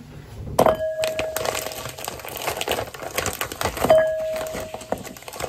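Plastic snack packet crinkling as it is handled and torn open. Two steady held tones, each about a second long, sound over it, one near the start and one about four seconds in.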